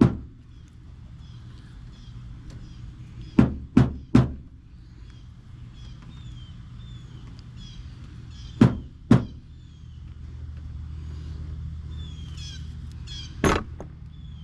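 Hammer tapping to seat a new rubber antenna boot on a pickup's antenna base: seven sharp knocks in groups, one, then three in quick succession, then two, then one near the end. Birds chirp faintly over a steady low hum.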